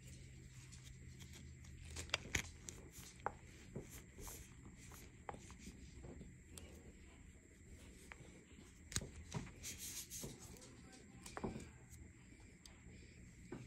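Hands crushing and crumbling dried chunks of blue cornstarch-and-glitter mudpie: soft, irregular crunches and crackles, clustered about two seconds in and again around nine to eleven seconds.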